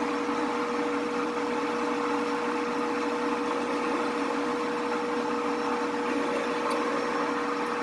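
Grizzly 4003 metal lathe running steadily, its motor and drive giving a constant whine.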